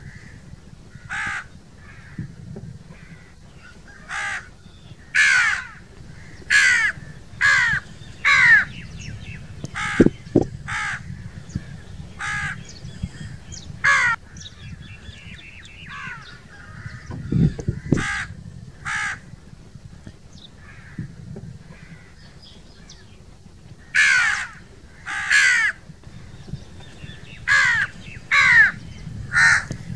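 Crows cawing: short, harsh caws repeated at irregular intervals, often several in quick succession.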